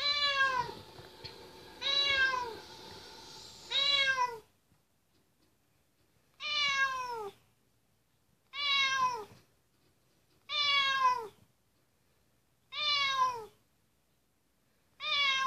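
Orange tabby cat meowing over and over, about eight meows spaced roughly two seconds apart, each one dropping in pitch at its end.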